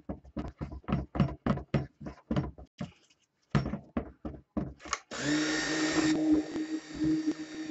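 Stick blender in a plastic bowl of cold-process soap batter: first a quick run of short clicks and knocks, then about five seconds in the motor switches on and runs steadily with a low hum, blending the batter.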